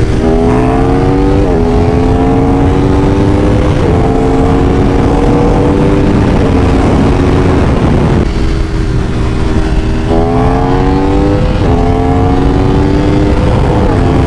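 Aprilia Tuono V4 1100 Factory's V4 engine under hard acceleration through the gears at highway speed. The pitch climbs and drops at each upshift, with a short let-off about eight seconds in, over heavy wind rush.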